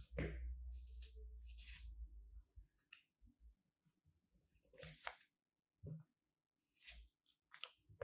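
Steel scissors snipping through shiny green paper, about six short crisp cuts with a pause in the middle. A low rumble of hand handling sits under the first two cuts.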